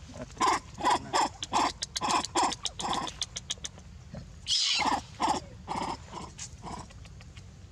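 Young macaques calling: a quick run of short, repeated calls, about three a second, then one louder, harsh call falling in pitch about four and a half seconds in, followed by a few more short calls.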